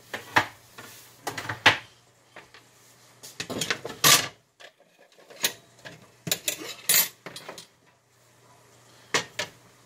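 Kitchen utensils and dishes clattering on a counter as things are picked up, moved and set down: irregular clusters of clinks, knocks and scrapes, over a faint low steady hum.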